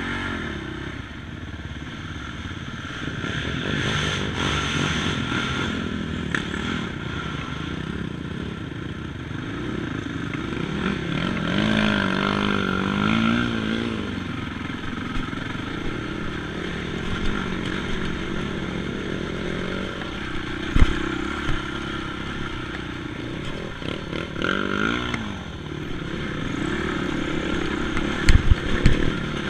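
ATV engine running under varying throttle, its pitch rising and falling as it revs, with clattering and a few sharp knocks near the end.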